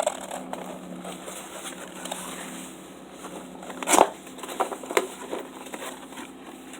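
Packaging being handled and cut open, with crinkling and rustling. A sharp knock comes about four seconds in and a lighter one a second later.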